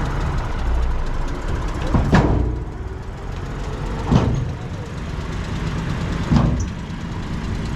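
Bulldozer's diesel engine running with a steady low rumble. A sharp clank or squeal cuts through about every two seconds.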